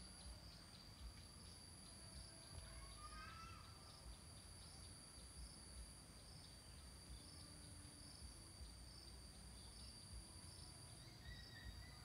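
Near silence: faint riverside ambience with a steady high insect trill, pulsing about twice a second, a few short bird whistles, and a low rumble underneath.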